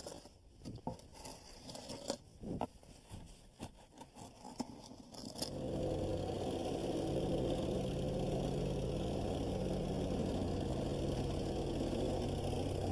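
A notched wooden 2x4 screed scraping unevenly across a bed of stone dust, with small knocks. About five and a half seconds in, a petrol-engine vibratory plate compactor comes in suddenly and runs steadily, compacting the stone-dust bed.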